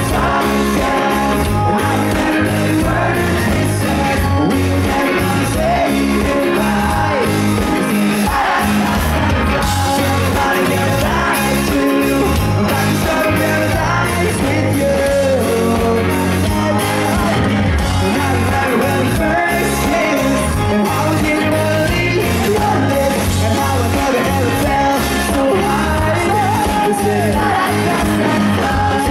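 Rock band playing live and loud: electric guitars, bass and drums with a lead vocalist singing.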